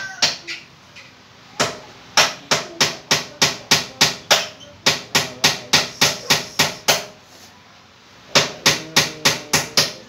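Hammer blows struck in quick, even runs of about four a second, three runs with short pauses between them, at work on a cabinet under a kitchen counter.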